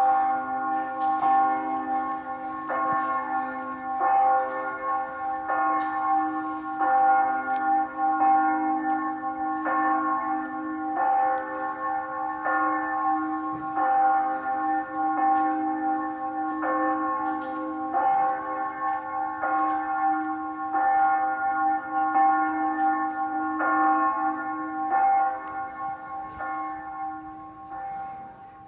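Church bells ringing steadily, struck about every one and a half seconds, each stroke ringing on into the next.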